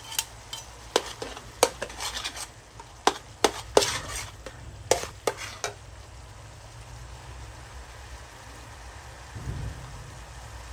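Metal wok turner scraping and clacking against a wok while stirring shallots and garlic frying in oil, a quick run of strokes over the first five seconds or so. After that the stirring stops and the frying sizzles on steadily.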